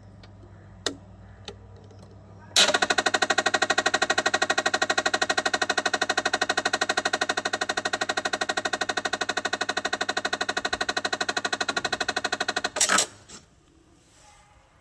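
Samsung top-load washing machine drain motor powered directly with 220 volts, giving a loud, rapid rattling buzz for about ten seconds that starts and cuts off suddenly, with a couple of clicks before and after. This noise is the drain motor fault being demonstrated.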